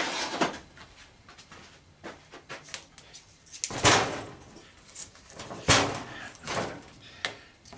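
A heavy iron-core transformer from a golf cart battery charger being handled on a workbench: a series of clunks and knocks as it is picked up, turned over and set back down. The loudest knocks come about four and six seconds in.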